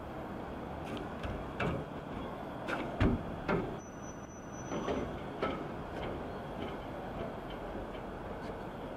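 An electric train approaching in the distance: a steady low rumble with a run of irregular knocks and clacks, loudest about three seconds in.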